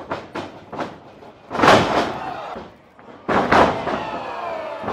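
Quick footfalls on a wrestling ring, then two loud slams of a body hitting the ring mat, about a second and a half apart, each with a ringing echo after it.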